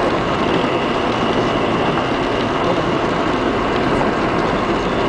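A car driving through deep floodwater, the water surging and spraying along its side in a steady rushing noise, heard from inside the car.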